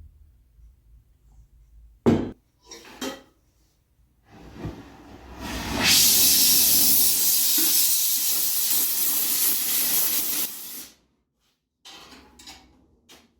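Two knocks, then a gas torch hissing loudly and steadily for about five seconds before cutting off abruptly, as the helmet steel is heated for shaping.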